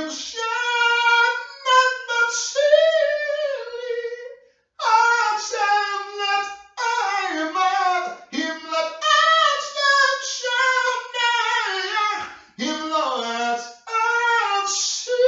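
A man singing unaccompanied in a high register, holding long notes in phrases broken by short pauses for breath.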